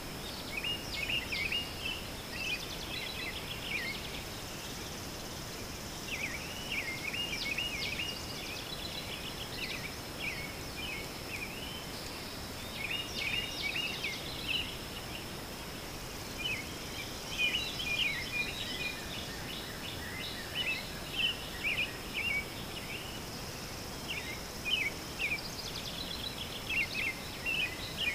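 Outdoor ambience of small birds chirping in quick clusters that come and go, over a steady high-pitched insect drone and a soft hiss.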